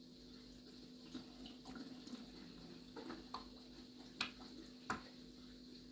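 Faint aquarium water sounds: a steady low hum with light trickling, and a few sharp clicks, the loudest about four seconds in and again about five seconds in.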